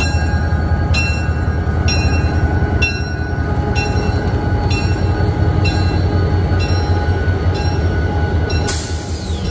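Santa Fe EMD FP45 diesel locomotive's 20-cylinder engine running steadily with a deep rumble as it pulls passenger coaches past, its bell ringing about once a second. A sudden hiss starts near the end.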